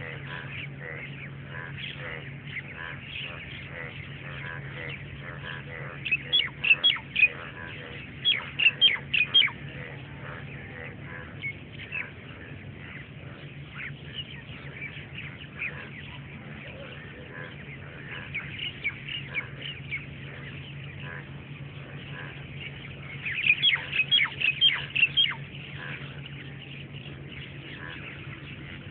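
Many birds calling at once in short, rapid calls, with two louder flurries, one about six seconds in and another about twenty-three seconds in. A steady low hum runs underneath.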